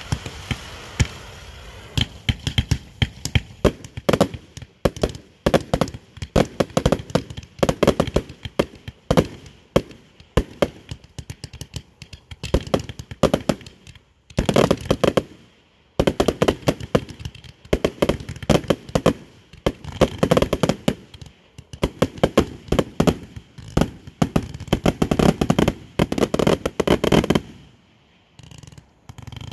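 Rapid, irregular sharp pops and crackles coming in dense clusters a second or two long, with short pauses between them.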